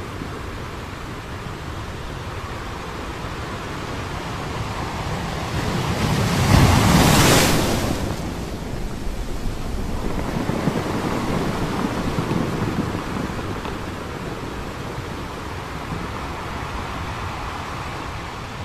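Sea waves surging and washing in, swelling and fading in slow waves, the loudest about seven seconds in.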